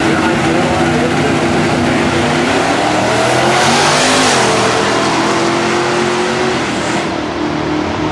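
Drag race car engines running loud, with a rising rev and a surge of noise about halfway through as a car accelerates, then a steadier engine note.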